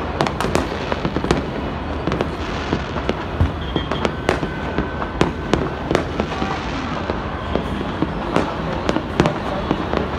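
Many fireworks and firecrackers going off at once: a dense, continuous stream of sharp overlapping bangs, several a second, with no let-up.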